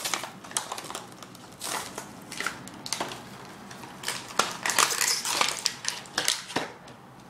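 Toy packaging being torn open by hand: irregular crackling and crinkling, busiest about two-thirds of the way through.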